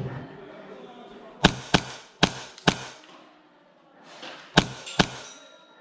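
Airsoft replica firing single shots: four sharp clacks a third to half a second apart, then after a pause two more.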